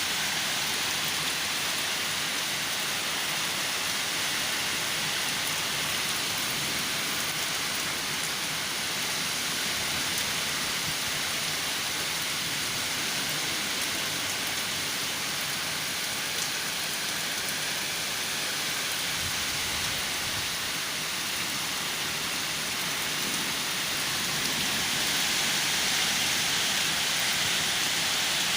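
Heavy storm rain pouring steadily, growing a little louder near the end.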